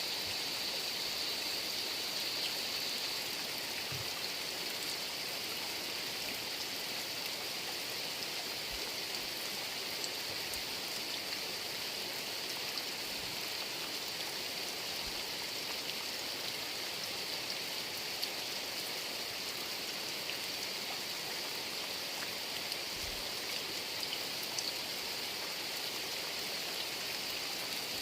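Heavy rain falling steadily, with a few scattered drops ticking close by.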